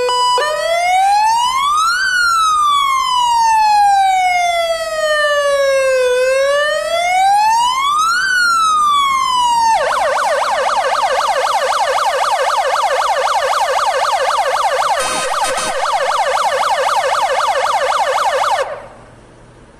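Electronic siren of a Jelcz 315 heavy fire engine. It runs a slow wail that rises and falls twice, then about ten seconds in switches to a rapid warble, which cuts off suddenly near the end.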